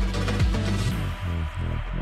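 Electronic dance background music with a steady kick drum. About a second in, the treble drops away and the bass turns into a fast pulsing pattern.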